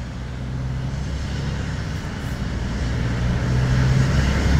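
Truck engine heard from inside the cab while driving, a low steady drone that grows gradually louder.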